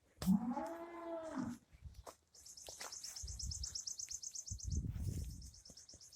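One moo from cattle, about a second and a half long, rising then falling in pitch. It is followed by two runs of a bird's rapid, high, even trill.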